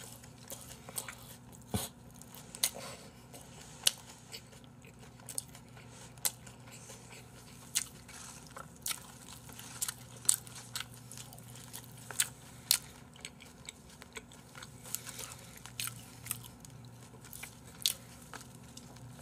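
Close-miked eating of jokbal (braised pig's trotters): chewing and biting, with scattered sharp clicks and taps, one or two a second, over a faint low hum.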